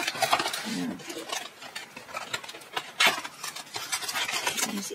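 Cardboard packaging and a plastic circular knitting machine handled by hand: scraping, rustling and small knocks, with one sharper knock about three seconds in.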